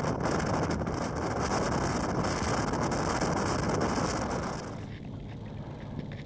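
Boat motor running as the boat travels across the water, with wind buffeting the microphone. The rush drops to a quieter level about four and a half seconds in.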